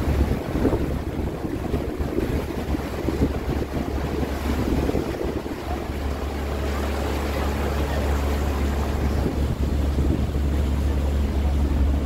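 A tour boat's engine running steadily with a low, constant hum, with water wash and wind buffeting the microphone over it.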